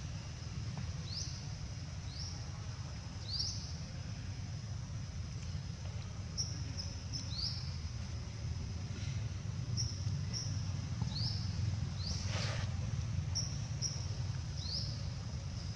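Outdoor ambience: short, high, rising chirps repeating every second or two over a steady low rumble, with a brief rushing noise about twelve seconds in.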